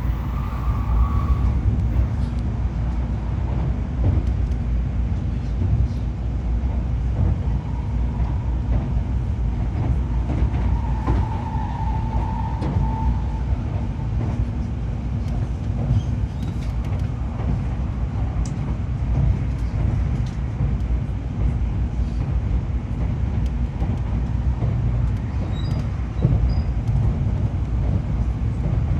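Passenger cabin of a Tōkaidō Shinkansen 700 series train running: a steady low rumble of the car under way, with a brief higher tone about a third of the way in.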